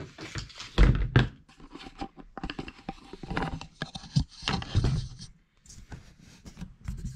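Handling noise from a 3D-printed plastic prop rifle and its magazine: a string of knocks, clicks and scrapes, loudest about a second in.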